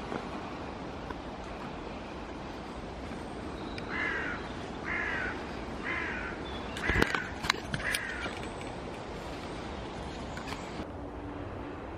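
A bird calling five times, one downward-sliding call about every second, starting about four seconds in. A few sharp knocks fall around the fourth call.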